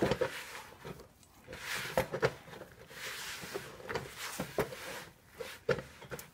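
Hands mixing and kneading soft banana-flour dough in a bowl: scattered light knocks and clicks with short soft rustling stretches.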